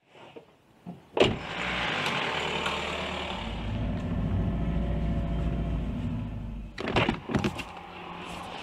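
Sounds inside a car: a sharp click about a second in, then a steady mechanical running sound with a low hum for several seconds. It ends in a quick run of clicks and knocks near the end.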